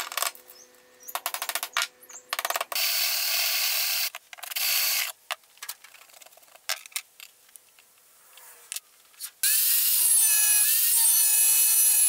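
Short bursts of metalworking noise and scattered clicks, then from about 9.5 s an angle grinder cutting steel plate: a loud, steady, high whine with a grinding hiss that holds to the end.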